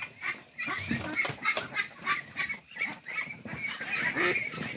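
A crowd of farmed ducks quacking and calling: many short, overlapping calls, with a few short knocks and rustles of handling mixed in.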